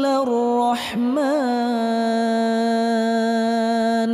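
A reciter chanting the Quran in melodic style: a short ornamented turn in pitch about a second in, then one long steady held note.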